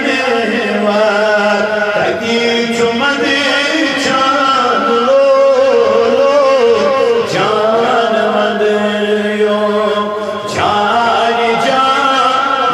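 A man singing a naat, a devotional poem in praise of the Prophet, solo through a microphone. He sings long held, wavering melodic lines with a few short breaks for breath.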